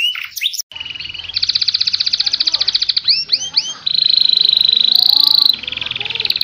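Domestic canary singing: fast rolling trills and rattles, broken by a few quick upward whistled sweeps near the middle and a steady buzzing trill a little later. It opens with short falling whistles, then switches abruptly, under a second in, to another recording with a faint background hum.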